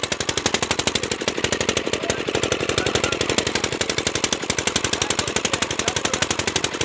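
Engine of an irrigation water pump running steadily, its exhaust firing in a rapid, even beat of about ten pops a second.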